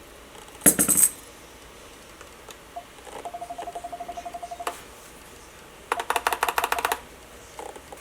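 Plastic keycap being pulled off and swapped on a mechanical keyboard. There is a loud clatter under a second in, a light even run of ticks with a faint ring around the middle, and a fast burst of clicks about six seconds in.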